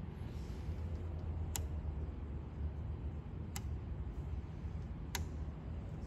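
Federal Products EAS 2354 dual gauge calibrator's rotary selector knobs being turned by hand, giving three sharp single clicks a second and a half to two seconds apart, over a steady low hum.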